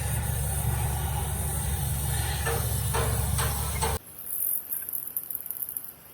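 A large engine running steadily with a hiss, cut off abruptly about four seconds in; after that, a faint high crackling.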